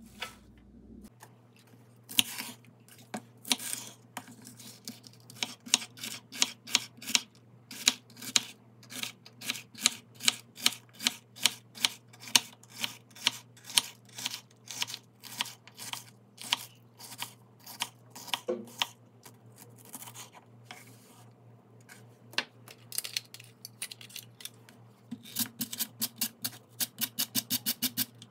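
Kitchen knife chopping a red pepper on a wooden cutting board, in steady strokes about two a second. Near the end it gives way to faster strokes of a handheld mandoline slicing cucumber.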